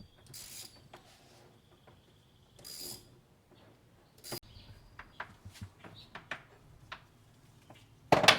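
Metal hand tools working a chain breaker on a motorcycle chain to push out a link pin: two short bursts of rasping, then scattered metal clicks, and a loud clank near the end.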